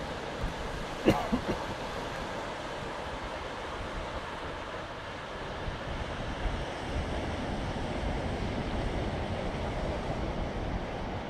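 Surf washing onto a sandy beach, a steady rushing noise, with wind buffeting the microphone. A short sharp sound stands out about a second in.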